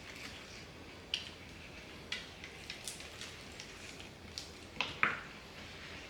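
Close-up eating sounds from fried chicken wings: scattered crunches, lip smacks and mouth clicks about a second apart, with two louder ones close together near the end.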